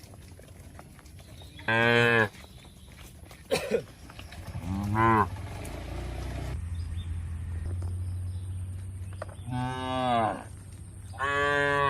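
Cattle mooing: four short moos, a few seconds apart.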